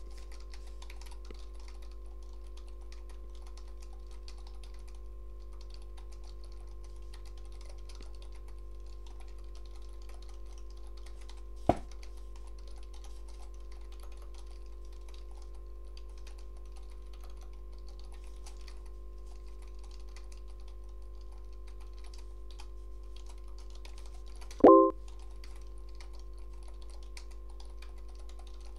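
Typing on a computer keyboard: a steady patter of soft key clicks over a constant low hum, with one sharp, louder click about twelve seconds in and a short, loud blip of several tones near the end.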